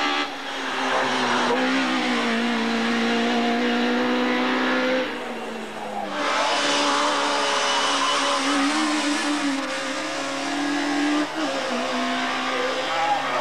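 Audi 50 / VW Polo hill-climb race car engine running at high revs as the car drives through the bends, the note held steady for seconds at a time and stepping in pitch now and then. There is an abrupt cut about six seconds in, after which a race car engine is again held at high revs.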